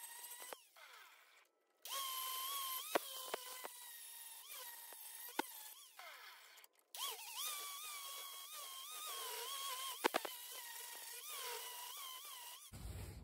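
Angle grinder grinding steel clamped in a bench vise: a steady high whine that dips in pitch and recovers as the disc is pressed into the metal. A few sharp clicks are heard, and the sound cuts out abruptly twice.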